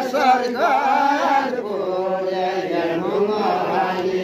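Men singing a Deuda folk song in a slow, chant-like line. The melody moves up and down at first, then settles into a long held note.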